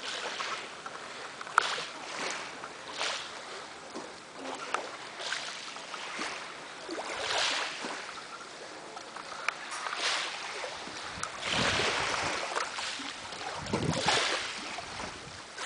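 Small waves lapping and splashing against a concrete seawall and rocks, a soft splash every second or so, with a few gusts of wind on the microphone in the second half.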